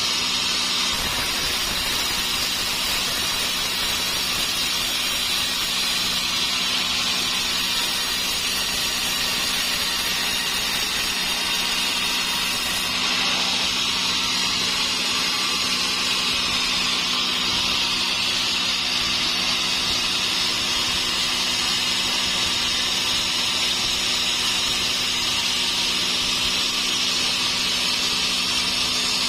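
Sawmill saw cutting through dry teak timber: a steady, loud high-pitched cutting noise over the constant hum of the machine, without a break.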